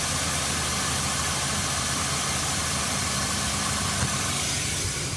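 Nissan HR16DE 1.6-litre four-cylinder engine of a 2015 Versa Note running steadily under a strong hiss, recorded to check for a knock that owners report at certain RPM. One short sharp tick about four seconds in; the sound eases slightly near the end.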